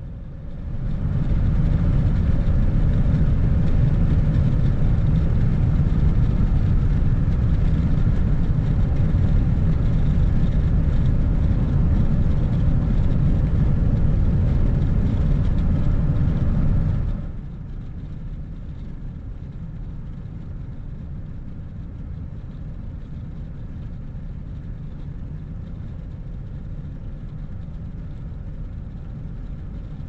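Steady noise of a vehicle driving at highway speed, heard from inside: a loud rushing for about the first sixteen seconds, then dropping suddenly to a quieter, low steady rumble.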